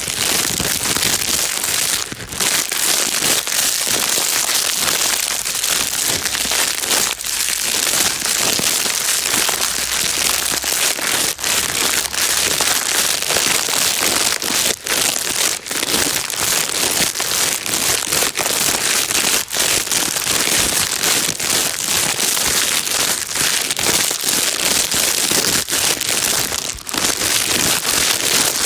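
Plastic bag being crinkled continuously, a dense, steady crackling rustle with only brief dips.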